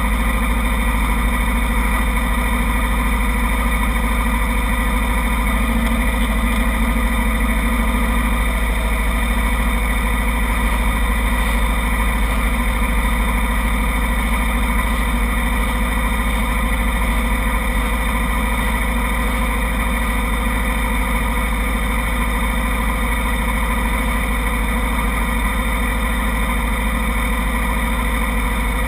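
Kawasaki Ninja 250 parallel-twin motorcycle engines idling steadily, with no revving.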